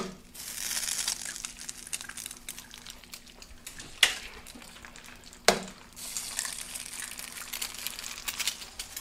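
Eggs cracked into buttered steel egg rings on a hot Vevor flat-top griddle. There is a sharp crack at the start and two more about four and five and a half seconds in. The egg sizzles in the butter after the first crack and again after the last.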